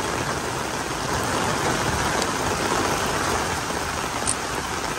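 Heavy rain pouring steadily, falling on an umbrella held overhead and on a wet paved lane.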